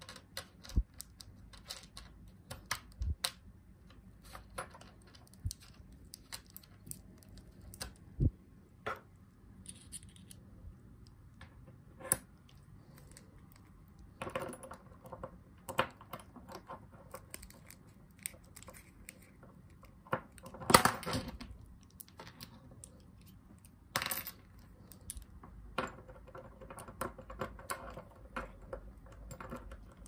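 Scattered small metallic clicks and taps as a brass Lockwood padlock is taken apart: tiny brass lock pins and springs handled in a parts tray and a slim tool working in the lock cylinder. A louder clatter comes about two-thirds of the way through.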